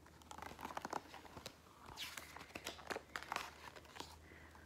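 Pages of a picture book being turned and handled: faint paper rustling and crinkling with a scatter of small taps.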